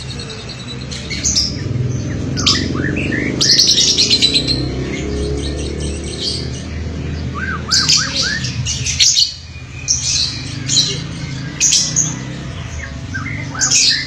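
Caged lovebirds, Fischer's type, chirping and squawking in quick clusters of shrill, high squeaks and short bent chirping notes, with brief pauses between bursts. A low steady background rumble runs underneath and drops away about nine seconds in.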